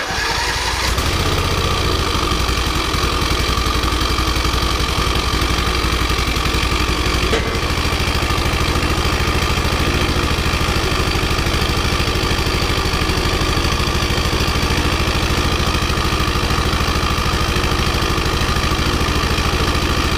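Troy-Bilt Pony riding mower's single-cylinder overhead-valve engine running steadily just after starting, with its valve cover off so the rocker arms are exposed. This is its first run after a bent push rod was replaced and the valves adjusted. The low note changes slightly about seven seconds in.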